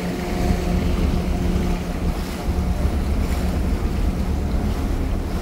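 Ferry engine running under way with a steady low drone and hum, over the rush of the wake water along the hull and wind buffeting the microphone.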